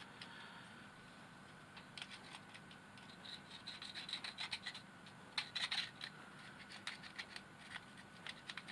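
Scratching and scraping on the plastic insides of a robot vacuum cleaner, with many quick clicks and rattles, as packed dust is picked out by hand. Faint at first, then busy from about two seconds in.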